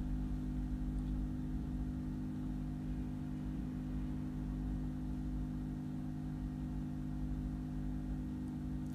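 A steady low hum holding several fixed low pitches over a faint rumble, unchanging throughout.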